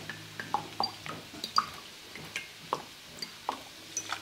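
Soy sauce dripping and trickling from a bottle's spout into a glass measuring cup: a run of small, irregular plops, over a low steady hum.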